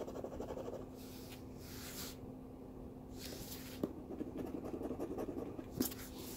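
Scratch-off lottery ticket being scratched: several short bursts of scraping at its coating with pauses between, and two light taps, the louder one near the end.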